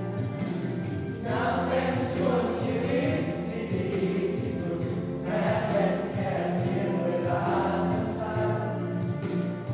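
Several voices singing a slow Thai ballad together over backing music.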